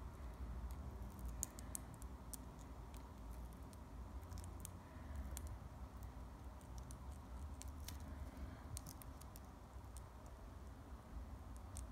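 Ballpoint pen tip scratching and ticking on paper in short quick strokes, faint, in a few bursts, over a low rumble.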